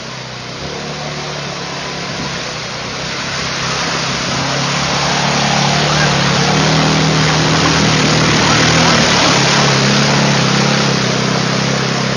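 Quad bike (ATV) engine running under load as it churns through deep muddy water, growing louder as the quad comes close about halfway through and staying loud as it passes.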